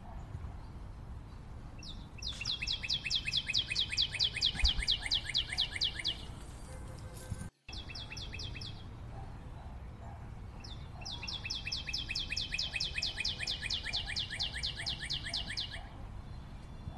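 Bird song: a rapid, high trill of repeated down-slurred chirps lasting about four seconds, sung twice with a short burst between, over a steady low background hiss.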